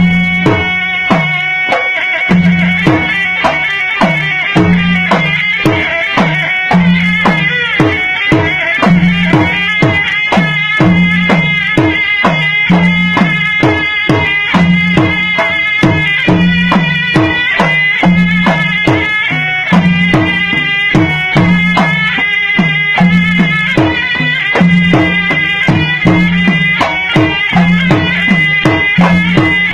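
Malay gendang silat music: a pair of double-headed gendang drums beat fast interlocking patterns, some low strokes sliding down in pitch. A serunai oboe plays a continuous melody over them, and a low gong-like tone sounds about every second and a quarter.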